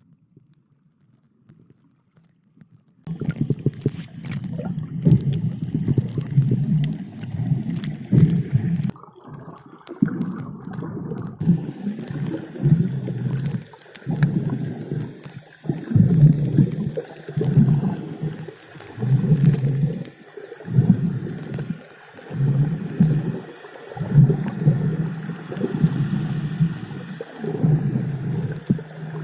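Underwater bubbling and gurgling, heard as if from beneath the surface, rising and falling in repeated surges about every one and a half to two seconds. It sets in about three seconds in, after a near-silent start.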